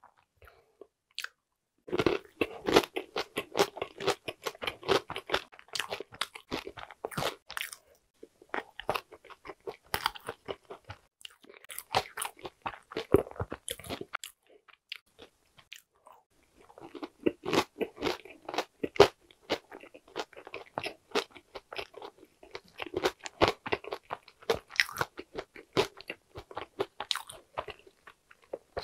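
Close-miked crunching and chewing of a chocolate-flake-topped Korean walnut cake (hodu-gwaja), the crisp shell and large walnut pieces crackling with each chew. It starts about two seconds in and comes in dense runs, with a short lull about halfway through.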